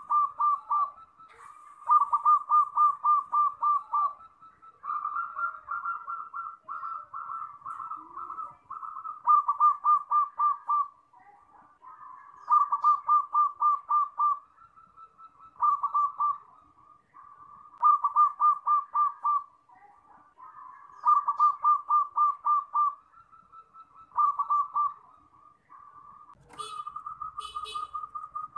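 Zebra dove (perkutut) cooing: phrases of fast, rolling coo notes, each one to two seconds long, repeated every two to three seconds. A few sharp clicks come near the end.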